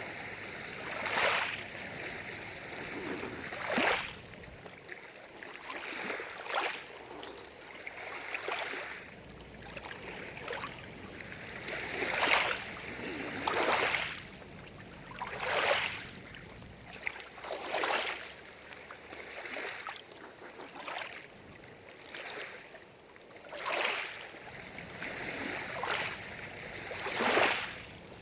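Small waves lapping against the lake shore, a soft splash-and-wash swelling every one to three seconds over a steady watery hiss.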